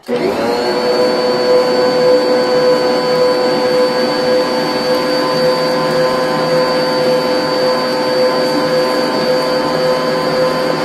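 Electric stand mixer switching on and running steadily, beating cake batter; its motor whine rises to a steady pitch in the first half second and then holds.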